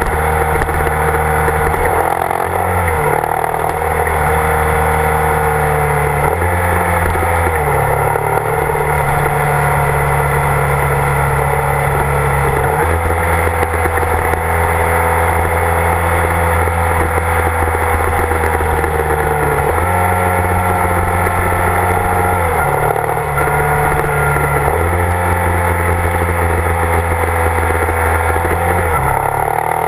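Motorcycle engine running at road speed. Its pitch steps up and down every few seconds as the rider shifts gears and works the throttle.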